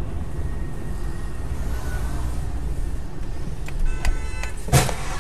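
Steady low rumble of a car driving, heard from inside the cabin. A short high tone sounds about four seconds in, and a single sharp knock comes near the end.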